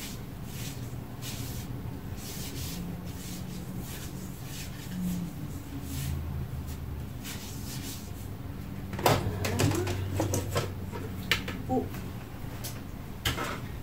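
A hand rubbing vegetable oil over a countertop in faint, repeated strokes. About nine seconds in, the plastic lid of a Bosch mixer bowl is lifted off with a clatter and a few sharp clicks.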